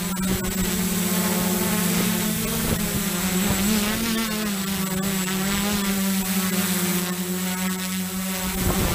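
Multirotor drone's electric motors and propellers buzzing steadily, heard from the camera on board, with a slight rise and fall in pitch midway as the throttle changes. Near the end the steady buzz gives way to a rougher noise.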